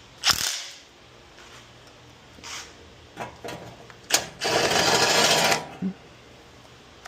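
Metal tool clanks and clicks, then about a second of a cordless electric ratchet whirring as it spins out a 10 mm exhaust heat shield bolt.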